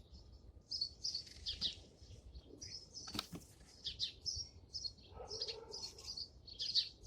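Small birds chirping, a steady run of short high-pitched calls, with a single brief knock about three seconds in.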